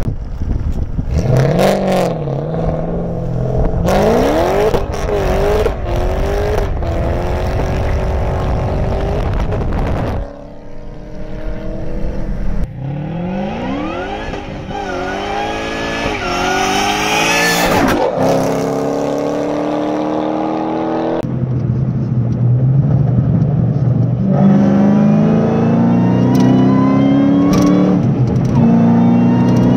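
2008 Roush 427R Mustang's supercharged 4.6-litre V8 running through a new axle-back exhaust: it revs and accelerates over several short clips, the engine pitch climbing and dropping with each rev. Near the end there is a longer, steadier pull with the pitch rising slowly.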